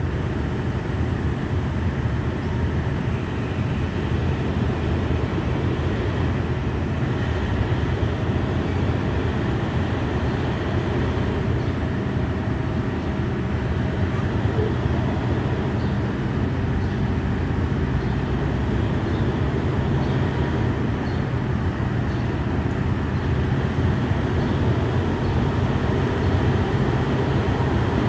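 KiHa 183 diesel multiple unit's engines running steadily with a strong low rumble as the train starts to pull out, getting slightly louder near the end.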